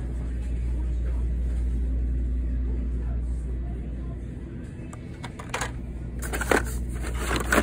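Hot Wheels blister cards and the cardboard shipping case being handled: plastic crinkles and clicks as the cards are shifted, with a few sharp clicks in the last couple of seconds, over a steady low rumble.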